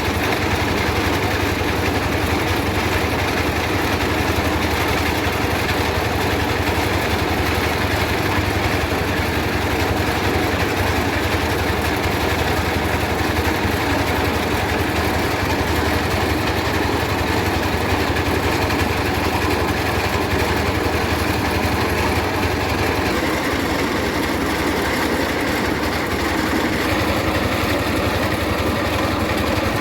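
Mobile rice milling machine running steadily, its engine hum under the dense rushing noise of the mill. The deep hum eases somewhat past the two-thirds mark.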